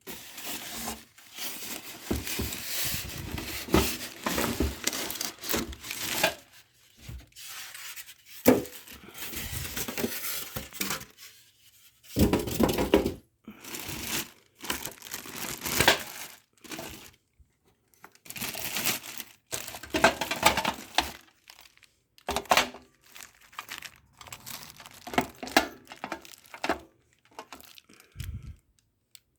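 Packaging being pulled off and handled during an unboxing: irregular bursts of crinkling and tearing, with a sharp knock about eight seconds in.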